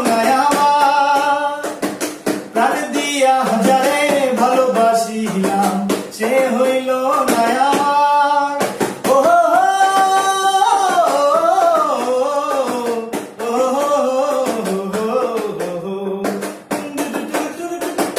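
Man singing a Bengali song, holding long notes that bend and waver, over a drum accompaniment with a steady beat.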